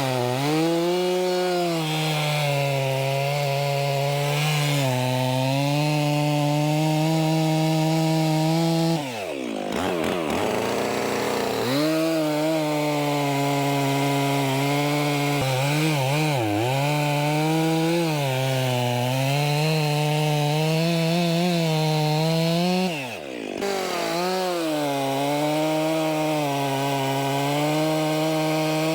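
Stihl 400C two-stroke chainsaw running at high revs while cutting logs, its pitch wavering a little under load. Twice the revs fall sharply and climb back: once about nine seconds in, with a slower recovery, and briefly again near the end.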